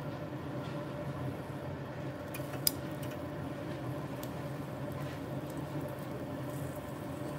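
Steady hiss of a tabletop yakiniku grill cooking a slice of wagyu on its wire mesh, with a single sharp click about two and a half seconds in.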